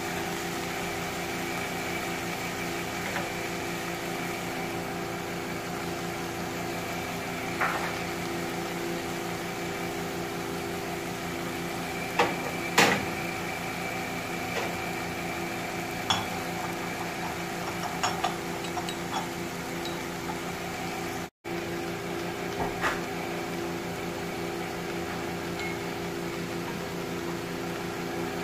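A steady mechanical hum throughout, with a few light clinks of a metal spoon against a pot. The strongest clinks come about halfway through.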